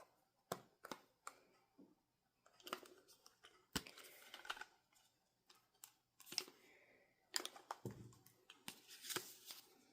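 Quiet handling of album packaging: scattered sharp clicks with stretches of soft rustling of paper and plastic as the contents are taken out.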